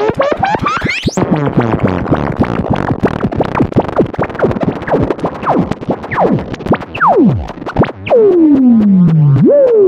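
EMS VCS3 MkII analogue synthesizer: fast pulsing tones rise in pitch for about the first second, then give way to a dense clicking pulse pattern with short falling sweeps. From about eight seconds a louder tone repeatedly glides down in pitch and snaps back up, about once a second.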